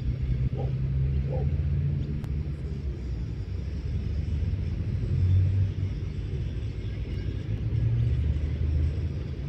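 Steady low outdoor rumble that swells and eases over a few seconds, with no clear events in it.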